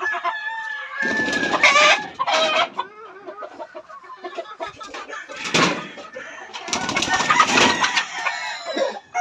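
Chickens clucking and calling, with a rooster crowing.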